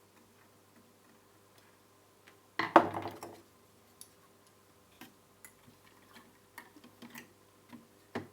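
Hard objects clattering briefly about two and a half seconds in, followed by scattered light clicks and taps and a sharp knock near the end: parts and tools being handled during a TV reassembly.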